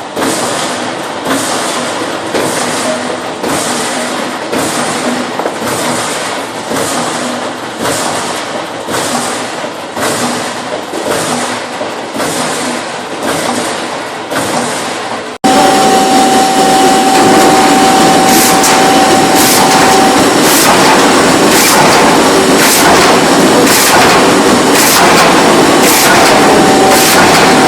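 SHS-1500 split-shingle machine working, its blade splitting wood with a regular stroke about once a second. About halfway through the sound changes abruptly to a louder, denser run with a steady whine and sharp strokes at uneven spacing.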